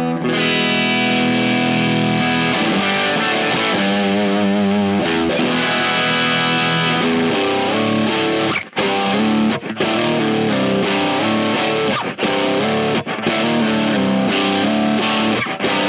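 Electric guitar with high-output humbuckers played through the Keris overdrive/fuzz pedal into an amp, giving a driven tone. Held chords ring out at first, with a wavering pitch about four seconds in, then chords are chopped off by short stops.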